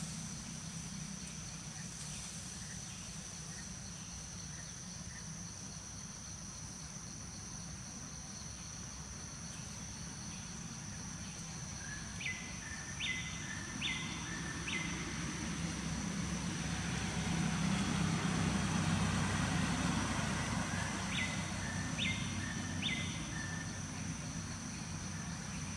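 Outdoor ambience with a steady high insect whine and a low traffic rumble that swells midway and fades. A bird calls twice in series of short, evenly spaced falling chirps, first four, then three.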